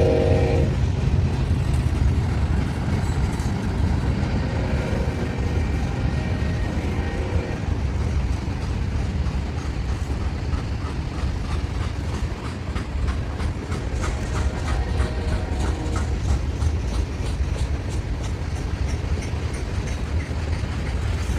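Heavy Union Pacific manifest freight train passing slowly upgrade: a deep steady rumble with rhythmic clicking of wheels over the rail joints, strongest about halfway through. A locomotive horn note cuts off in the first second.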